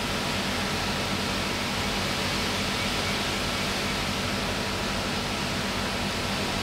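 Strong tropical-cyclone wind and heavy rain: a steady, unbroken rush of noise.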